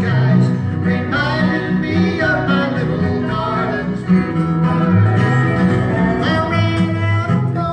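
Acoustic country band playing: a resonator guitar played lap style with a slide, a strummed acoustic guitar and a bass line moving from note to note.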